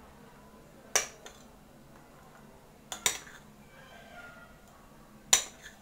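A utensil clinking against a glass mixing bowl as stiff whipped cream is scooped out to fill a piping bag: four short sharp clinks, one about a second in, two close together around three seconds, and one near the end.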